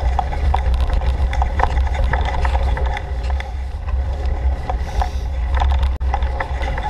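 Mountain bike riding fast over a rough trail, heard through a bike-mounted GoPro: a heavy steady low rumble with constant irregular clicks and rattles. The sound drops out for an instant about six seconds in.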